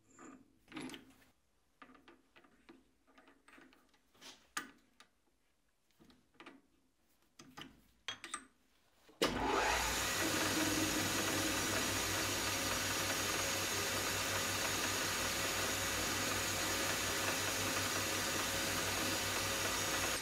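A few light knocks and clicks as a steel ball is handled against a pipe held in a lathe chuck. About nine seconds in, a metal lathe comes in suddenly, running with a steady machine noise and a low hum as it turns the workpiece against a carbide cutting tool.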